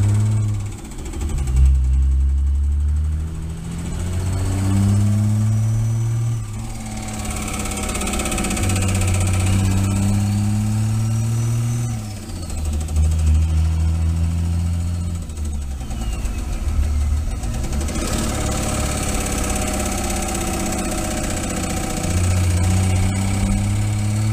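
Cummins diesel pickup engine running and revved up and down several times, with a turbo whistle rising and falling along with it.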